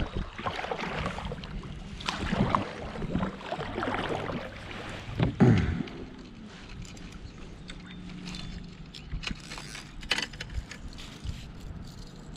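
Paddle strokes and water splashing and knocking against a plastic Lifetime Yukon Angler sit-on-top kayak, irregular, with the loudest stroke about five seconds in. A steady low hum runs through the middle seconds.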